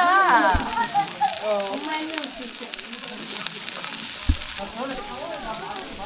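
Tomahawk steak, king oyster mushrooms and asparagus sizzling on a hot ribbed grill plate, a steady frying hiss. Voices are heard over the first second or so and faintly near the end, with a couple of soft low thumps.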